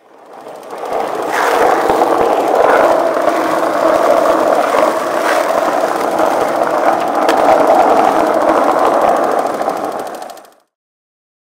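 Film projector running: a steady, rapid mechanical clatter that fades in over the first second, holds level, and stops shortly before the end.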